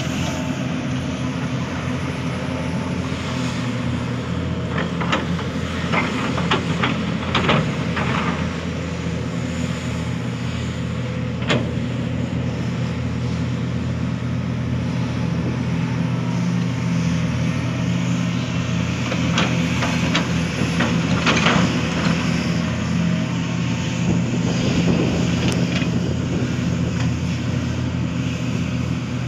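Diesel engine of a Hitachi Zaxis 490 LCH excavator running steadily under load while it digs. Scattered sharp knocks and clanks come several times, a cluster around a quarter of the way in, one near the middle and more about two-thirds through.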